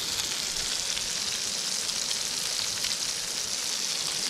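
Pigs in blankets (bacon-wrapped sausages) sizzling steadily in a frying pan, with a fine crackle in the hiss.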